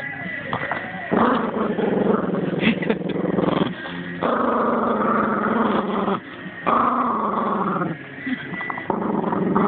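A Cavalier King Charles Spaniel growling close up, in long low growls of one to three seconds with short breaks between them. It is guarding a lamb bone.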